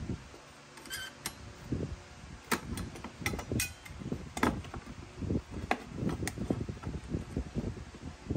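Irregular clicks, taps and light knocks of hard objects being handled, with rustling in between.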